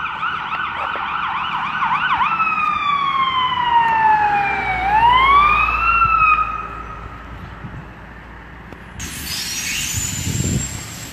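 Fire engine's electronic siren: a fast yelp, then a slow wail that falls and rises again before fading out about six seconds in. Near the end a steady hiss starts suddenly.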